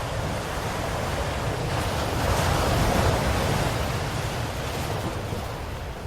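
Ocean waves breaking on a shore, a steady wash of surf with a low rumble. One wave swells to a crest about two to three seconds in and then recedes.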